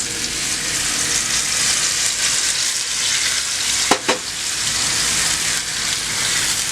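Sofrito sizzling as it fries in hot oil in a pot, a steady hiss, with one brief knock about four seconds in.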